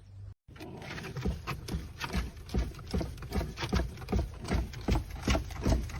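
A steady, even run of short knocks, about three a second, growing slightly louder, starting just after a moment of silence.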